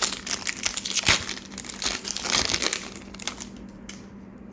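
Foil wrapper of a Pokémon TCG booster pack crinkling as it is opened, the crinkling stopping about three and a half seconds in.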